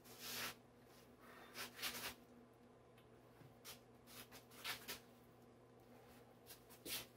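Near silence: a faint steady electrical hum, with a few soft clicks and rustles of something being handled.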